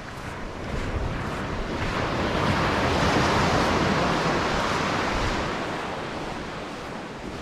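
Pacific Ocean surf: a wave breaks and washes up the beach, swelling to its loudest about three seconds in and fading away over the next few seconds, with wind rumbling on the microphone.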